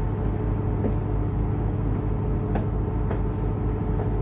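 A tour boat's engine running steadily, heard from on board: an even low drone with a faint regular throb.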